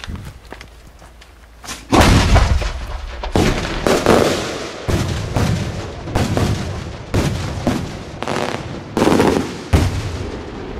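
Multi-salute cylinder firework shell: a dull thump at the start, then from about two seconds in a long string of loud, sharp salute bangs, roughly two a second, each trailing an echo.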